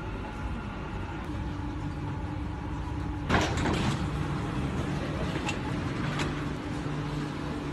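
Steady hum inside a Dubai Metro train car at the station. About three seconds in comes a sudden loud hiss as the sliding doors open.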